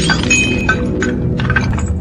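Action-film soundtrack: a few light clinks of falling debris over a low, steady music drone, just after a burst of shattering glass.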